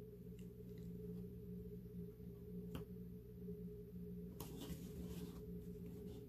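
Quiet room tone with a steady low hum, and faint rustles and taps of cardstock being handled and pressed flat by hand, a little louder about four and a half seconds in.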